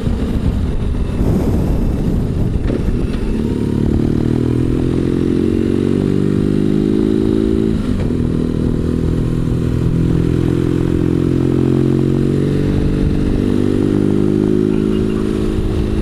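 BMW R1200GS boxer-twin engine running under way, heard from the rider's seat. Its pitch climbs over several seconds, drops sharply about eight seconds in, then climbs again.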